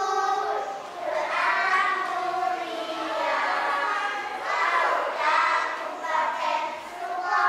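A small group of young children singing together as a choir, in phrases of held notes, led by a child conductor.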